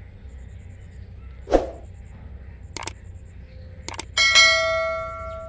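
A small metal bell struck once about four seconds in, ringing out and fading over a second and a half. A few clicks come just before it, and a brief sharp sound comes earlier, about a second and a half in.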